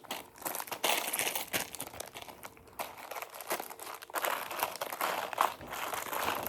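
Candy wrappers crinkling and rustling as hands rummage through a bag of candy, in irregular crackly bursts.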